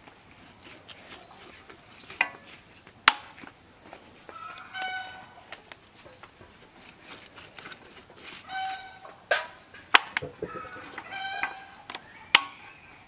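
Chickens clucking and calling now and then, short pitched calls a few seconds apart. A few sharp clicks or knocks, the loudest sounds, come about three seconds in and twice near the end, over a thin steady high tone.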